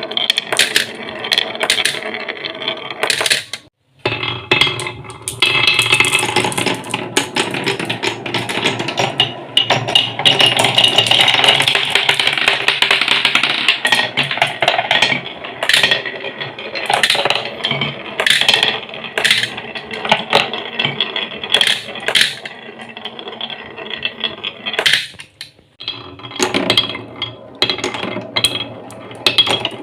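Marbles rolling and clattering down a wooden marble run, a dense stream of clicks, knocks and rattles that pauses briefly twice.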